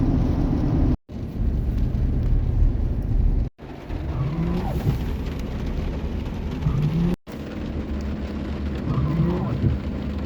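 Car cabin noise while driving: a steady low rumble of engine and tyres. The sound cuts out abruptly three times, where separate clips are joined.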